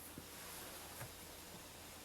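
Faint steady hiss from the General Electric 7-4956B clock radio's cassette player running the blank start of the tape, with one soft tick about a second in.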